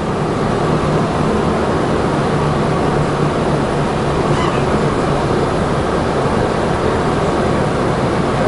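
Tatra KT4D tram running on the track, a steady, even running noise with a low hum.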